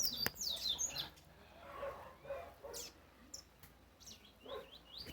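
Double-collared seedeaters (coleiros) singing: a quick phrase of high, chirping notes in the first second, then scattered short calls.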